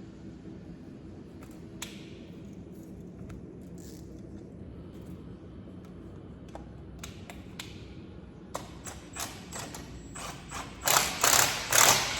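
Hand ratchet wrench clicking while fasteners are tightened during a turbocharger install: a few scattered clicks, then quicker ratcheting strokes that get much louder in the last second or so.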